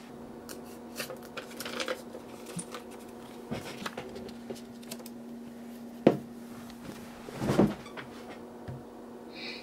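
Light handling sounds of paper and a sticky-note pad: scattered rustles and taps, a sharp knock about six seconds in, and a short rustling rip about a second and a half later as a note is peeled off the pad, over a steady low hum.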